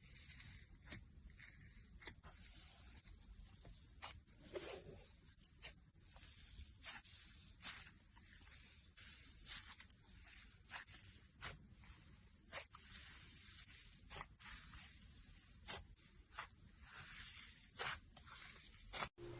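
Slime being squeezed and stretched by hand, quiet sticky crackling with irregular sharp pops about once a second.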